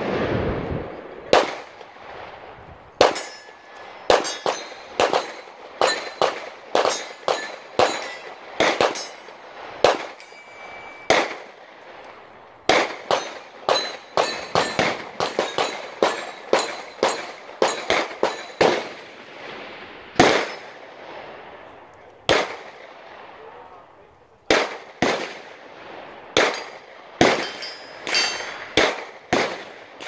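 Gunfire from several shooters on a busy range: irregular single shots, about one to two a second, each with a short echo, varying in loudness with a brief lull about three-quarters of the way through.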